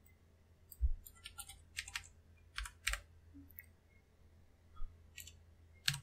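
Computer keyboard keystrokes: irregular, faint clicks, some in quick pairs and small clusters, with short pauses between them.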